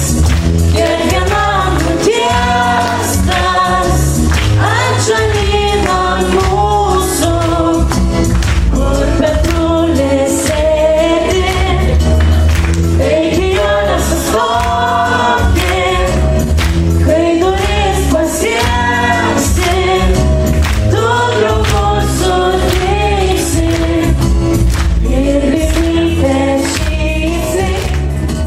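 A group of young singers, boys and girls, singing a song together into microphones over an amplified backing track with a steady bass line.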